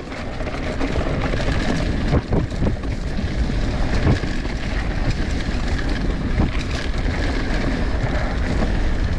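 Wind buffeting the microphone over mountain bike tyres running down a dirt trail, with occasional knocks and rattles from the bike.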